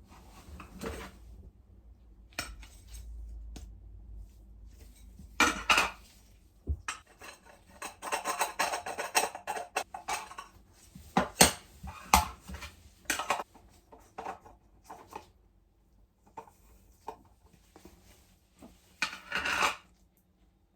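Small metal parts clinking, knocking and rattling as they are handled on a workbench, in irregular clusters of sharp clicks with a busier run of clatter about eight seconds in.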